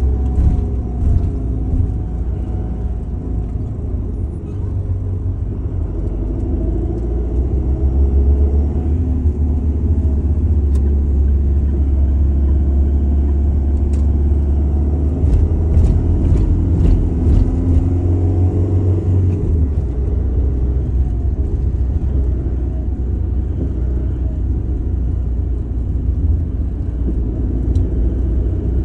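Steady low rumble of a moving car, heard from inside the cabin: road and engine noise.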